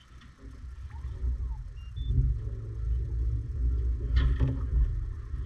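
A low rumble that swells over the first two seconds and then runs on steadily, with a brief crackle about four seconds in.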